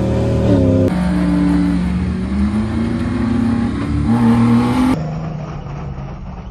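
Jeep engine revving hard under load during a kinetic-rope recovery pull, its pitch climbing and dropping several times. About five seconds in the sound changes abruptly to a quieter, lower engine note.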